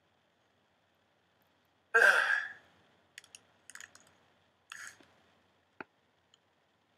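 A man sneezes once about two seconds in, a single short, sharp burst of breath that fades quickly. A few faint short clicks follow.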